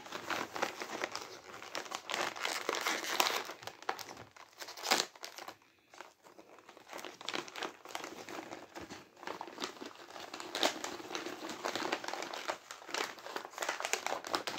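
A plastic cookie packet crinkling as it is handled, with a brief pause about halfway through.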